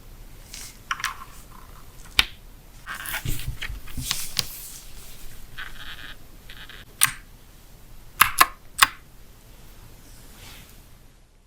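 Packaging and a keyboard being handled: crisp rustling and scraping, with a few sharp clicks, three of them close together near the end.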